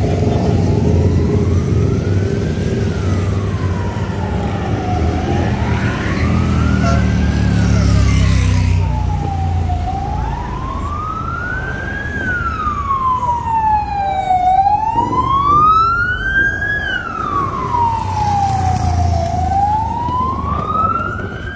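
Ambulance siren wailing, its pitch slowly rising and falling about once every five seconds, growing louder as it approaches. Engine rumble from passing motorbikes and cars underlies the first half.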